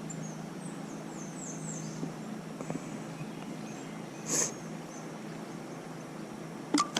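Quiet riverside ambience with a bird chirping: a quick series of short, high, downward-sliding chirps in the first two seconds, then a brief hiss about four seconds in and a couple of clicks near the end.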